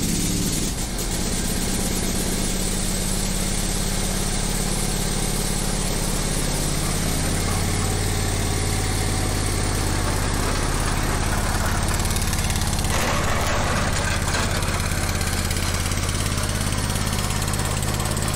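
Wheel Horse 267HE ride-on mower's engine running steadily through its new exhaust system. Its low, even note grows stronger about halfway through as the mower comes closer.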